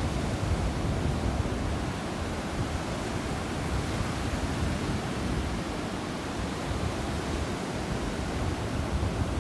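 Ocean surf washing steadily onto a sandy beach, an even rush of waves with no single break standing out.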